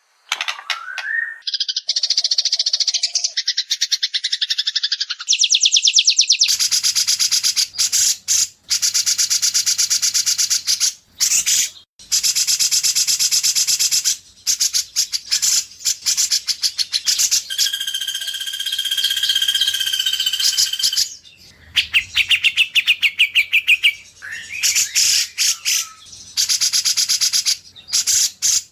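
White-rumped shama song from an edited training recording: long runs of rapid repeated trilling notes, opening with a rising whistle. About two-thirds of the way through, a steady whistled note is held for about three seconds.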